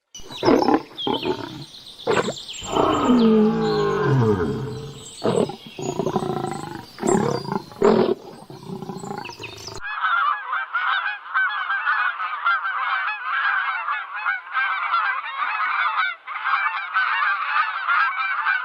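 Animal calls: a run of loud honking, roaring cries, several sliding down in pitch. About ten seconds in, a sudden cut leads to a dense, unbroken chorus of many small chirping calls.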